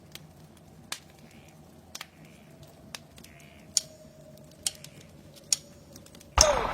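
Sharp single clicks about once a second over a faint steady hum, then music starts loudly just before the end.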